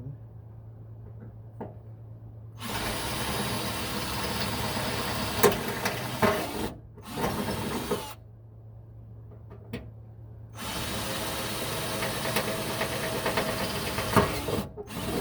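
Power drill boring a mounting hole with a large bit, enlarging a pilot hole. It runs in bursts: about four seconds, a brief stop and a short burst, a pause of a couple of seconds, then another run of about four seconds and a short burst near the end.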